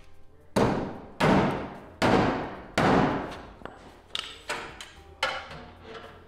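Heavy blows striking the sheet metal of a pickup truck bed as its damaged corner is straightened. Four loud strikes in the first three seconds each ring out, followed by a few lighter ones.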